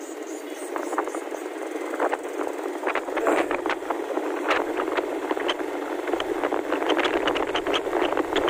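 Wind rushing over the microphone of a moving motorcycle, with frequent short clicks and rattles from about three seconds in.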